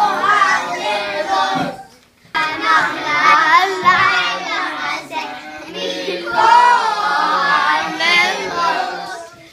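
A group of children singing a Passover seder song together in unison, with a short break about two seconds in.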